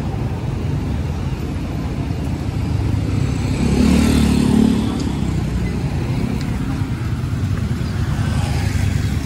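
Street traffic: cars and motorcycles running past steadily, with a motorcycle passing close about four seconds in, its engine hum swelling and fading.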